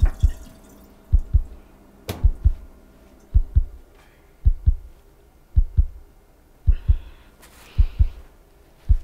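Heartbeat sound effect: steady lub-dub pairs of deep thumps, about one beat a second.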